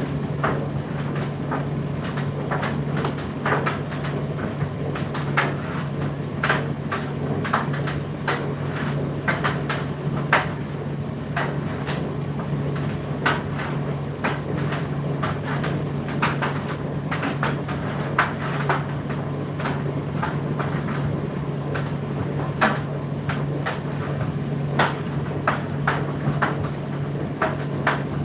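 Indesit IDC8T3 condenser tumble dryer running, with a steady low motor hum under irregular clicks and knocks from the load tumbling in the turning drum.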